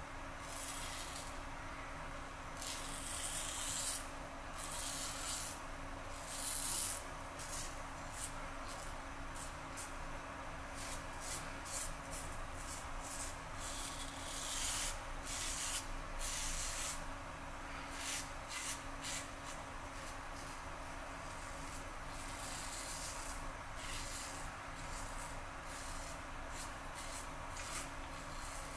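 Merkur 34G double-edge safety razor with a Rapira blade scraping through stubble in many short strokes, each a crisp rasp. The strokes come thick and fast for the first half, then grow fewer and fainter.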